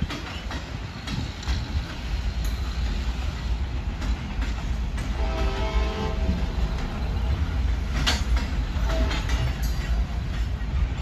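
Freight train of loaded gondola cars and boxcars rolling past: a steady low rumble with scattered sharp clanks and clicks from the wheels and couplers. A brief pitched tone comes about five seconds in.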